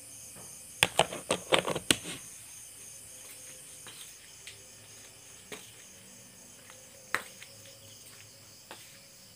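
Crickets chirping steadily in an even, pulsing trill. A quick run of sharp clicks and knocks comes about a second in, with a few single knocks later.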